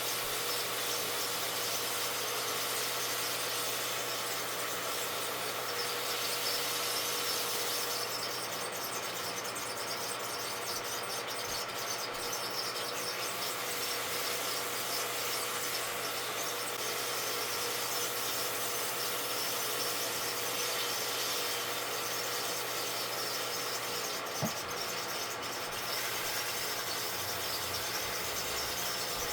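Rockwell wood lathe running steadily with a hum and a steady whine, the spindle turning the workpiece without the sandpaper on it. The humming is the noise the owner found was not right: a lathe bearing beginning to seize. A single click about 24 seconds in.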